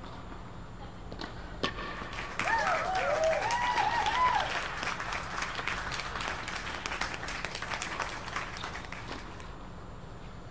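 A single sharp hit about one and a half seconds in, then spectators clapping for about six seconds after a point is won, with voices cheering as the applause begins.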